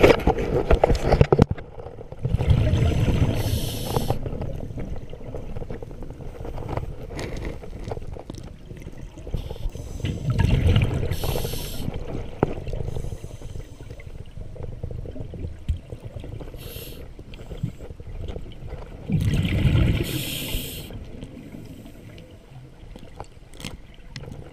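Scuba diver's breathing heard underwater through the camera housing: exhaled air bubbling out of the regulator in loud bursts, about one every eight to nine seconds, with quieter bubbling between.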